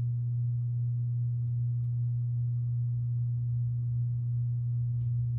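Hampton Bay Littleton 42-inch ceiling fan running, its motor giving a steady low hum.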